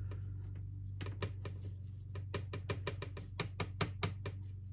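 Paintbrush tapping and clicking against a plastic paint palette while stirring white paint that has started to dry. The taps are quick, light and irregular, several a second, and get busier about two seconds in.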